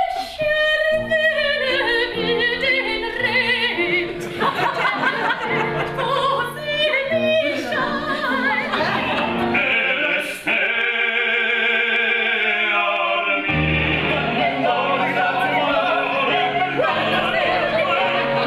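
Operatic singing by women's voices with piano accompaniment. The voice carries wide vibrato and holds one long high note about ten seconds in, after which low piano chords come in under the singing.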